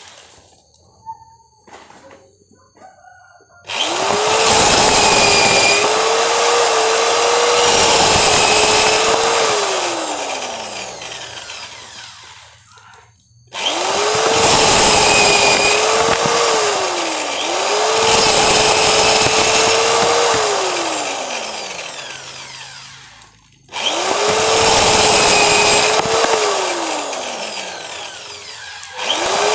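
Cordless drill-driver stripping kernels off corn cobs, run in three long bursts with a dense rattling hiss of kernels over the motor's whine. The whine dips and slowly sinks in pitch as each burst winds down, with short pauses between bursts.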